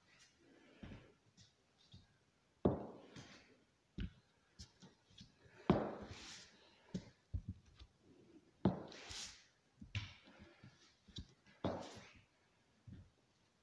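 Slow walking on forearm crutches across a bare wooden floor: knocks of the crutch tips and a high-heeled pump on the boards, each strong knock followed by a short scuff, with lighter taps between, a step every couple of seconds.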